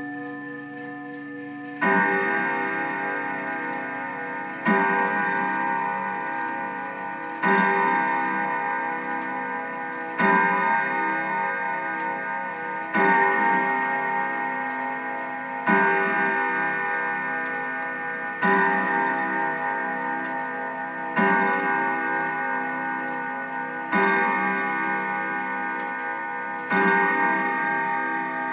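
Emperor 300M grandfather clock striking the hour on its chime rods: ten evenly spaced strikes about three seconds apart, each ringing out and slowly fading, counting ten o'clock. The clock's tick-tock runs underneath.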